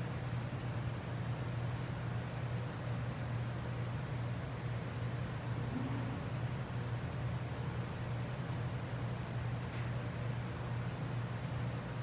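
Barbed felting needle in a wooden handle stabbing repeatedly into core wool, faint scratchy pokes at an irregular pace, over a steady low hum.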